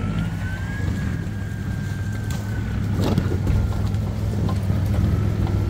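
Off-road BMW 4x4's engine running under load as it drives the trail: a steady low rumble with a faint whine that rises over the first second and then slowly eases off, and one sharp knock about three seconds in.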